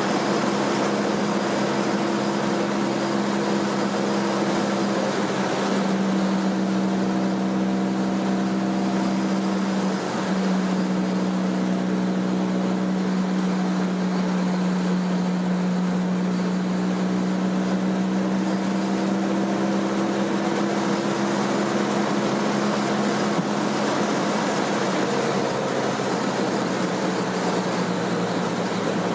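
Car engine and road noise from inside a moving car at cruising speed: a steady engine drone that dips briefly about ten seconds in, then slowly rises in pitch.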